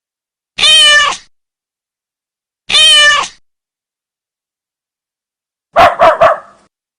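A domestic cat meowing twice, two identical drawn-out calls about two seconds apart, then a dog barking three times in quick succession near the end.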